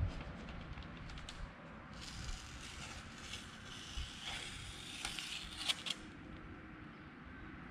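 Paper rustling and crinkling as a large sheet is pressed and smoothed over tape strips across a car's windshield opening. It is busiest in the middle, with a few small sharp clicks.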